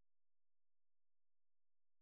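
Near silence: the soundtrack is empty.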